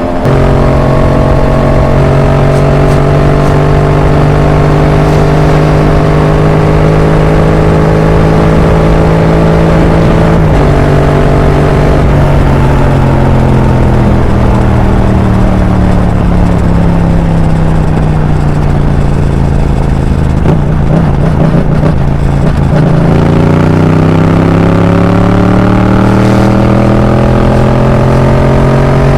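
Yamaha MT-07's parallel-twin engine through an Arrow aftermarket exhaust, under way on the road. It holds a steady cruise with the pitch creeping up, eases off with the pitch falling for several seconds, then accelerates again with rising pitch near the end, over a rush of wind and road noise.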